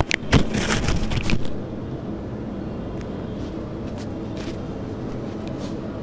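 Steady low rumbling background noise, with a quick cluster of knocks and rustles in the first second and a half.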